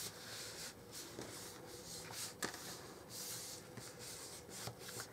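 Faint rubbing and rustling of paper as hands press and smooth a freshly glued paper panel onto a card, with a small click about halfway through.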